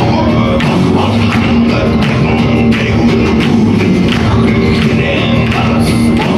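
Mongolian folk-metal song playing: a steady drum beat under a sustained low drone, with voices and plucked or bowed strings mixed in.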